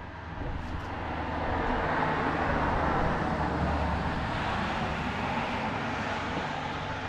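Motorcycle running on the road, engine and wind noise building to a peak about three seconds in, then easing off a little.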